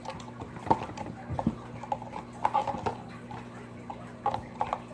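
Plastic slime containers being shuffled around, making irregular light clicks and knocks over a steady low hum.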